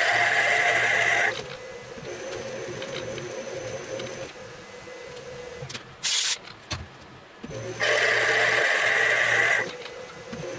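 Metal lathe running with a steady hum while a boring bar cuts into a brass block in a four-jaw chuck; twice the cut sets up a loud, harsh cutting noise lasting a second or two, at the start and about eight seconds in, with a short burst of hiss about six seconds in.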